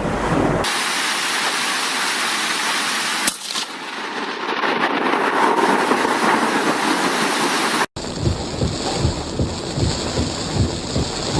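Thunderstorm sounds across spliced clips: a steady hiss of heavy rain with a single sharp crack about three seconds in, then, after a brief dropout near eight seconds, irregular low rumbling of thunder.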